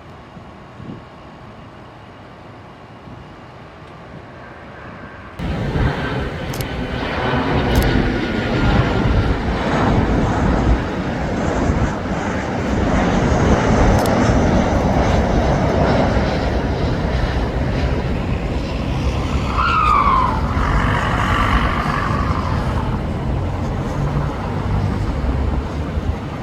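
Boeing 737 airliner's jet engines during landing. A quieter, steady jet noise jumps suddenly about five seconds in to a loud, full roar, with a brief falling whine about two-thirds of the way through.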